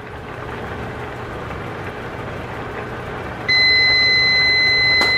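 A timer sounding one long, steady, high-pitched beep that starts about three and a half seconds in and lasts about three seconds, signalling that the pasta's cooking time is up. Before it there is a steady background hiss, and a short click comes near the end.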